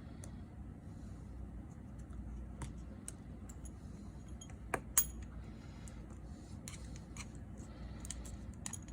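Small clicks and light metallic taps of repair tools and parts being handled on an iPhone 6s Plus during reassembly, with two sharper clicks close together about halfway through, over a low steady hum.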